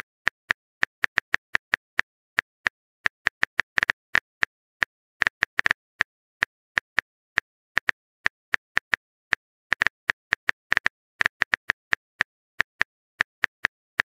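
Simulated phone keyboard typing clicks, the chat app's sound effect for a message being typed: short sharp taps at an uneven pace, about three to four a second.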